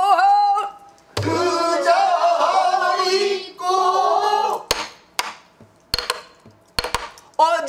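Pansori singing with wide, wavering vibrato, broken about a second in by a low stroke on the buk barrel drum. After the singing stops, several sharp knocks of the drumstick on the buk come over about two seconds. Singing resumes near the end.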